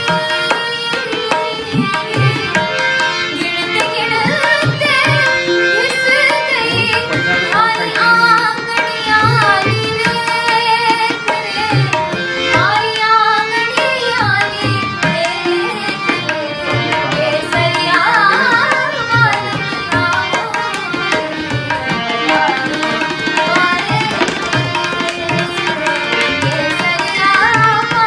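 A young woman singing an Indian song to her own harmonium, with tabla strokes keeping a steady beat beneath the voice.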